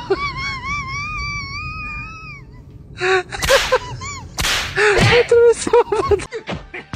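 A high-pitched, wavering whine for about two and a half seconds, then loud, high-pitched cries and gasps from a person, starting about three seconds in and coming in short broken bursts.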